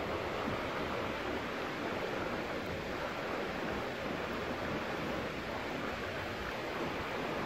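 Running stream: a steady, even rush of water with no breaks.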